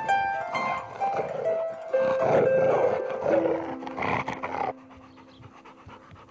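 Background music with a melody of short notes over a yellow Labrador panting; about five seconds in the melody stops, leaving one held low note under the panting.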